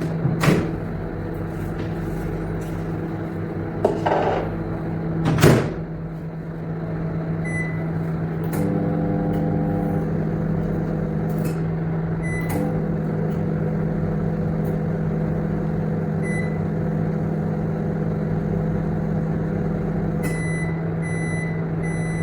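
Commercial microwave oven running with a steady hum. There are two knocks in the first few seconds, a single short beep now and then, and three quick beeps near the end.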